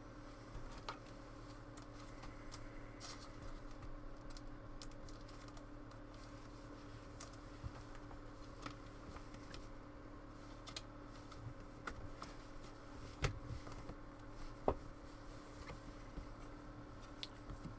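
Trading cards being handled: scattered light clicks and rustles as cards are flipped through and set down, over a low steady hum.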